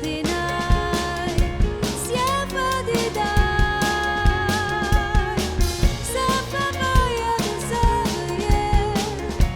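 Instrumental passage of a synth-pop band song: a steady drum-kit beat with bass drum and snare under bass and held synthesizer chords, with a lead melody that slides between notes.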